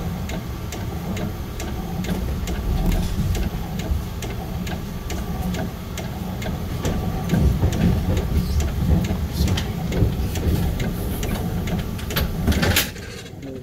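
Budd M3 electric multiple-unit train rolling slowly over a steel bridge: a steady low rumble with a regular clicking of wheels on the bridge track, about two to three clicks a second. Near the end a few louder clicks come close together, then the sound drops off suddenly.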